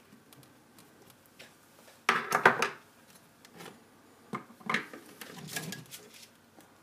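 Handling clatter: a loud knock and rattle about two seconds in, then a shorter run of knocks and scrapes near the end as the small acrylic-framed 3D printer is tipped over onto its side.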